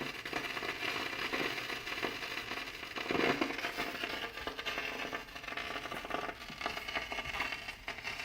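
Static and crackling from a Kenwood GE-52B graphic equalizer heard through the speakers: dense, irregular crackles and pops over hiss, swelling louder about three seconds in. It is an intermittent fault in the equalizer that fades in and out on its own and is not cured by good RCA cables or by wiggling the connections.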